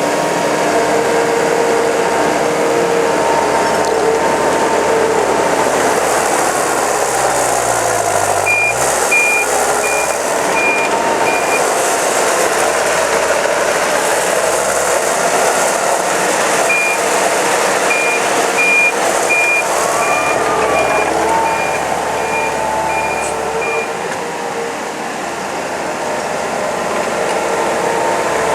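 Gehl CTL80 compact track loader's turbo diesel engine running as the machine is worked, its pitch shifting with the revs. Its backup alarm beeps about twice a second in two spells, one near the start and a longer one in the middle, while it reverses.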